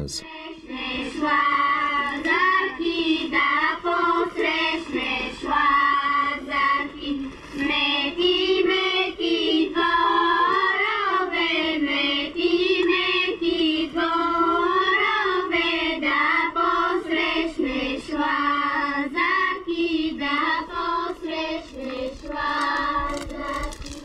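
A group of young girls singing a Bulgarian Lazarus Day ritual folk song together, in repeated phrases, stopping just before the end.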